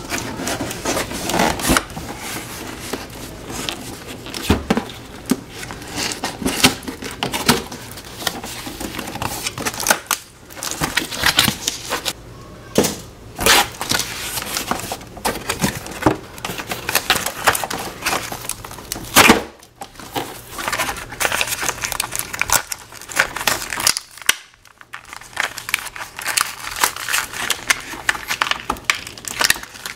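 Hands opening a cardboard toy box and unpacking its contents: cardboard flaps scraping and tearing, plastic packaging crinkling. It comes as a string of irregular rustles and rips with a few brief pauses.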